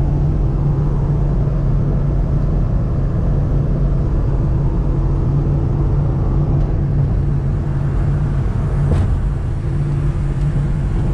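Steady low drone of a car, engine and road noise running evenly.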